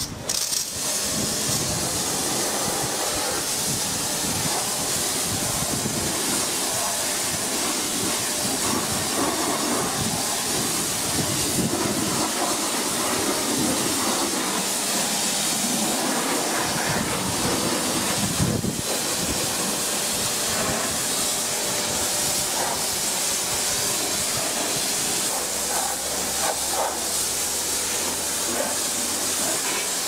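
Pressure washer spraying a steady jet of water onto a muddy car, a continuous hiss with the water spattering off the bodywork.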